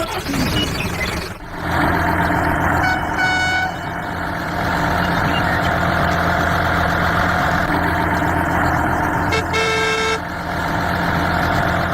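A vehicle engine running steadily, with a horn tooting twice: briefly about three seconds in, then louder about ten seconds in.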